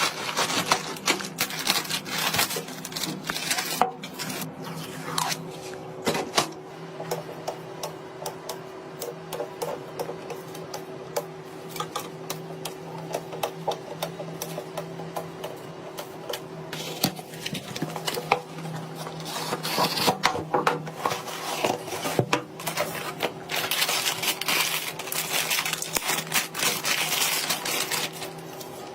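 Hard computer parts being handled and fitted during a PC build: an irregular stream of clicks and taps, busiest near the start and again in the last few seconds, over a steady low hum.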